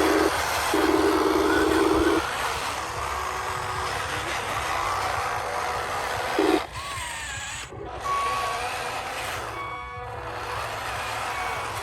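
Electronic sound effects from remote-control toy construction trucks. A loud low buzzing tone stops about two seconds in, leaving a rumbling engine-like sound, and short high reversing beeps begin past the middle.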